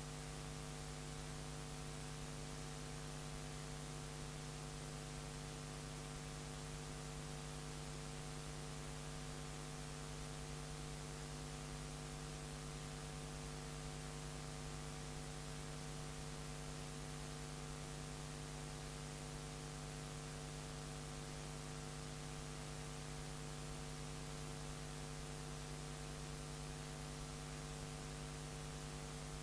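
Steady electrical mains hum, several unchanging tones over a layer of hiss.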